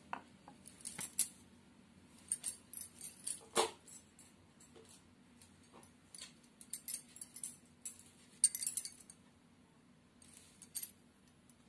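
Scattered light clicks, taps and brief rustles of kitchen things being handled: a wooden rolling pin laid on a marble rolling board and a plate of rolled parathas moved, with a few sharper knocks among them. A faint steady low hum runs underneath.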